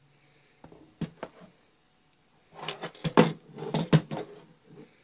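Hard plastic knocks and clicks as Ryobi 18V battery packs are set on a wooden table and fitted onto 3D-printed plastic holders: a couple of sharp clicks about a second in, then a cluster of knocks and handling sounds from about two and a half to four seconds in.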